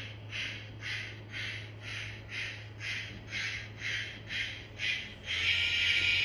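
Model steam locomotive's sound chuffing steadily at about two beats a second over a low steady hum. A little over five seconds in, the chuffs give way to a louder, continuous steam hiss.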